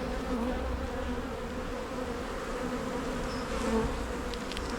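Honeybees buzzing steadily around an open hive while its frames are lifted and inspected, a continuous droning hum.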